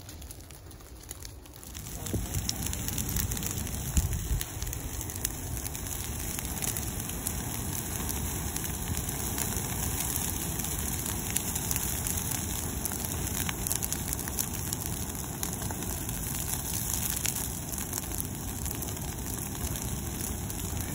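Brush fire burning through young pines and undergrowth: a steady rush of flames with many sharp crackles and pops. It grows louder about two seconds in.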